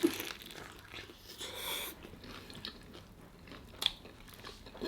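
Close-miked chewing of crispy fried chicken: crackling crunches of the breaded skin being bitten and chewed, with a sharp click near the end.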